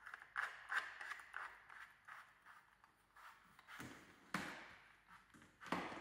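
Plastic vacuum-cleaner floor nozzle being pushed and twisted onto its metal wand, giving a run of small plastic scrapes and clicks. Two sharper knocks come in the last two seconds.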